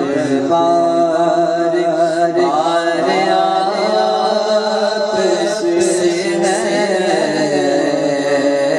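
A man singing an Urdu naat into a microphone, drawing out long, wavering melodic notes over a steady low drone.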